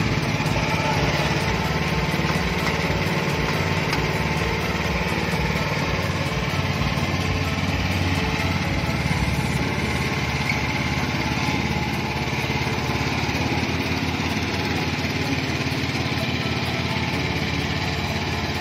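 Matsumoto MLM158 RO riding lawn mower's petrol engine running steadily while the mower is driven.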